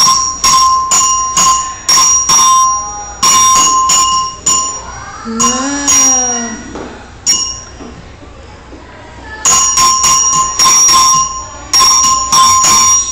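Metal resonator tone bars on wooden boxes struck with a mallet in uneven runs of quick strikes, each strike ringing briefly. The striking pauses about halfway, then stops for a couple of seconds before a last run of strikes.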